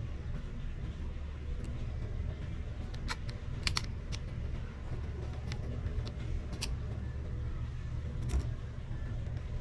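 Scattered light clicks and taps of small tools and parts handled during a phone repair, a few sharper than the rest, over a steady low rumble.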